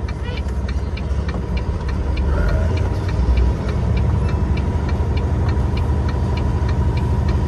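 Turn-signal flasher ticking evenly, about three clicks a second, over the low rumble of a semi truck's diesel engine, which grows slightly louder a couple of seconds in as the truck pulls through the turn.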